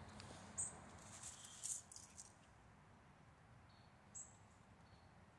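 Quiet outdoor ambience with a few short, very high chirps, and a brief crisp rustle between about one and two seconds in as hands pick the leather-sheathed knife up off dry leaves.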